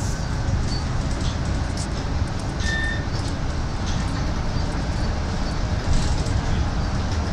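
Cabin noise inside a moving articulated city bus: a steady low rumble of the ride with light rattles and clicks, and a brief high squeak about three seconds in.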